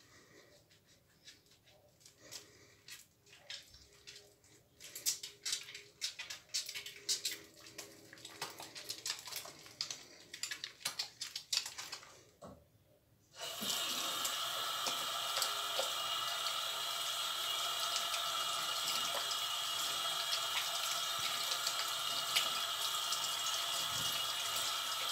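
Soap-lathered hands rubbing together, making many soft wet clicks. About halfway through, the tap is opened and water runs steadily from the faucet into the sink as the hands are rinsed under it.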